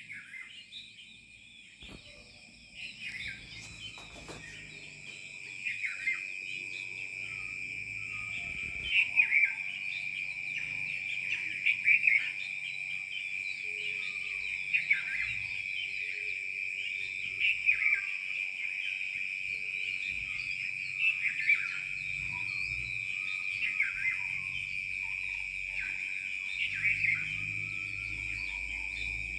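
Rain forest dawn chorus: a steady, high insect drone with birds giving short, pitch-sliding calls every few seconds over it. The whole chorus grows louder a few seconds in.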